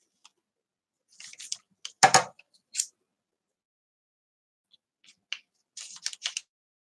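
Paper and craft materials being handled: short crinkling rustles and clicks in a few clusters, with one louder thump about two seconds in as the journal pages are moved.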